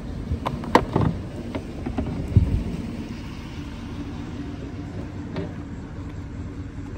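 Plastic knocks and bumps as a wet/dry shop vacuum is picked up and handled, several in the first two and a half seconds and one more later, over a steady low rumble.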